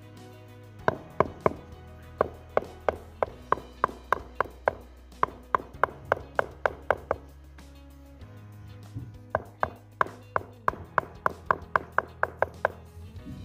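Rubber mallet tapping granite strips down into a wet mortar bed to level them: quick, even taps at about three a second, in two runs with a short pause between. Background music plays underneath.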